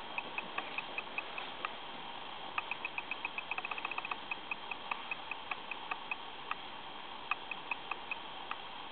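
Irregular short, high ticks over a steady hiss, some spaced apart and some in a quick run about four seconds in.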